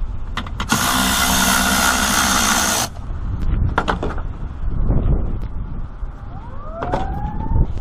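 Cordless power tool running for about two seconds with a steady motor whine as it undoes the wiper arm nut. Scattered knocks and handling thumps follow, with two short rising squeaks near the end.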